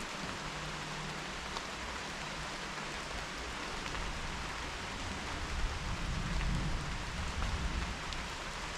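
Steady rain falling, a continuous hiss with scattered drop ticks. In the second half a low rumble of distant thunder swells and fades under it.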